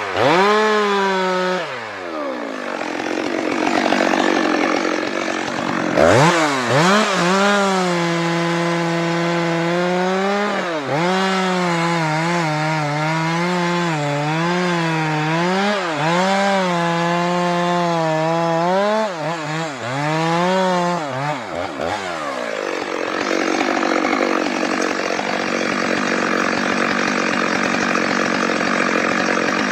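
Stihl MS 462 two-stroke chainsaw cutting into a spruce trunk at full throttle, its pitch sagging and recovering again and again as the chain loads up in the cut. After about 22 seconds the clear engine note drops away into a steady rougher noise.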